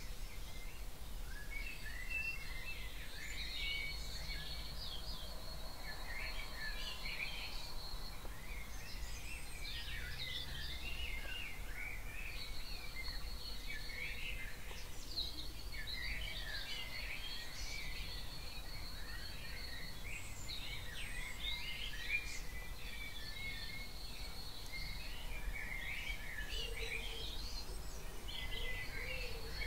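Dawn chorus of several birds singing at once, with many overlapping chirps and song phrases and a thin, steady high note that comes and goes every few seconds, over a low, steady background rumble.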